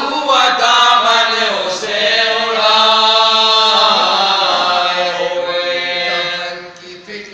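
Unaccompanied male voices chanting an Urdu noha, a Shia lament, into microphones. A long note is held through the middle, and the voices dip in loudness near the end.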